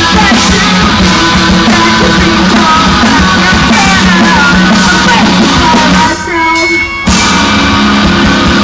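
Rock band playing loud, with a singer over guitars and drums, in a harsh, overloaded recording. About six seconds in, the music briefly drops away for about a second, then comes back in.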